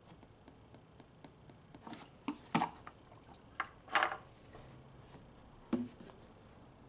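Plastic oil bottle being handled against a plastic funnel while engine oil is poured: soft clicks, then a few louder knocks and scrapes, the biggest about four seconds in, as the bottle is tipped up into the funnel and lifted off.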